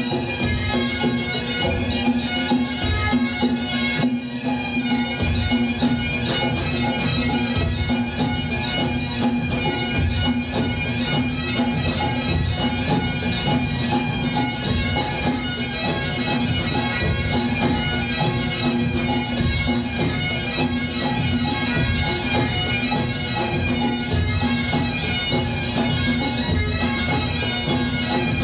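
Great Highland bagpipes playing a tune over their steady drones, with drums beating underneath.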